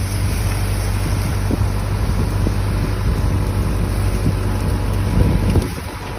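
A boat's engine running steadily, with wind buffeting the microphone; the sound eases a little near the end.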